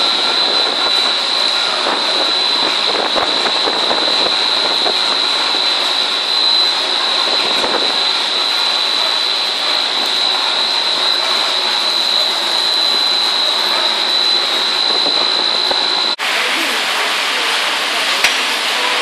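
3D pellet snack forming machine running, its rollers pressing dough sheets and cutting them into small triangular pellets, with a steady high whine over the machine noise. About sixteen seconds in, the sound cuts abruptly to an even hiss.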